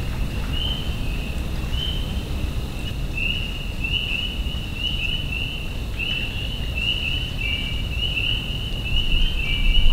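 A chorus of high chirping calls, short overlapping chirps several a second that grow denser after about three seconds, over a steady low rumble.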